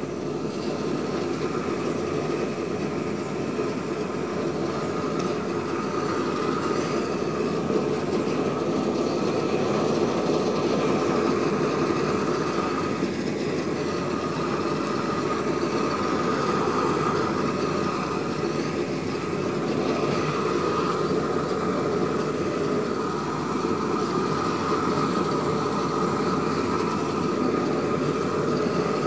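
Propane weed-burner torch burning steadily, a continuous rushing flame noise as the wand is worked over the weeds.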